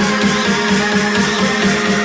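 Background music: an instrumental stretch with sustained tones over a fast, even beat.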